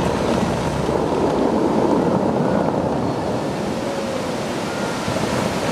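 Dubai Fountain's water jets shooting up and crashing back into the lake: a steady rush of falling water and spray.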